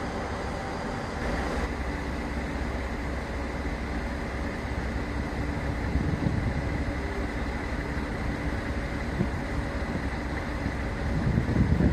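Steady low rumble of diesel trains at a station, then a DB Class 628 diesel multiple unit approaching, its engine growing louder near the end.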